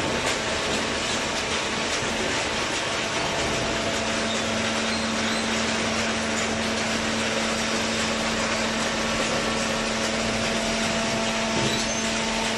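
Horizontal hydraulic waste paper baler running: a steady mechanical noise with a constant hum.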